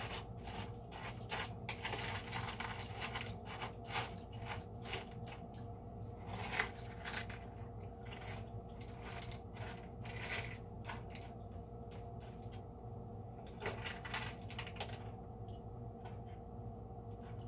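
A utensil stirring and scraping in a dog's food bowl, mixing dry kibble with soft food and chopped hard-boiled egg, with quick clicks and rattles. The clicks come thick for about ten seconds, then thin out to a few scattered ones. A steady low hum runs underneath.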